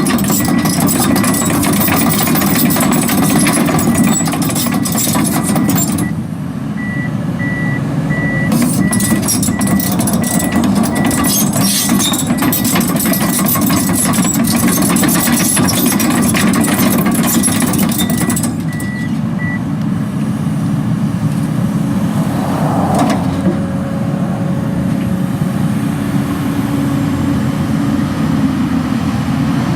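Komatsu PC240LC-10 excavator's diesel engine running, with a travel alarm beeping steadily over clattering from the machine, typical of the excavator moving on its tracks. The beeping and clatter stop about two-thirds of the way through, and the engine keeps running.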